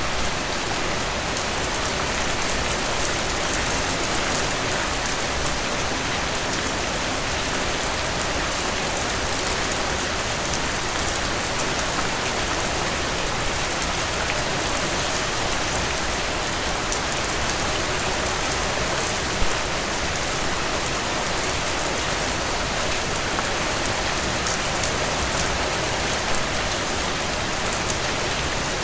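Steady rainfall, a dense even hiss of drops with the odd louder single drop.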